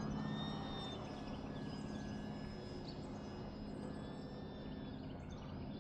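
FMS Cessna 182 RC plane's electric motor and propeller running in flight: a steady drone with a thin high whine that wavers gently in pitch. Faint bird chirps come through over it.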